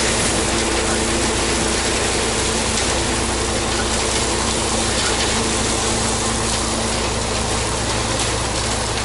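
Crushed stone gravel sliding and rattling out of a tipped dump truck bed onto a pile, a continuous rushing clatter of stones. Underneath it runs the steady hum of the truck's engine.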